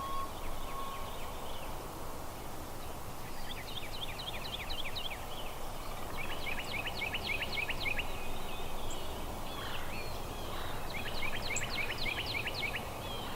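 Wild turkey gobbler gobbling three times, each gobble a rapid rattling string of notes lasting about a second and a half, over steady outdoor background noise.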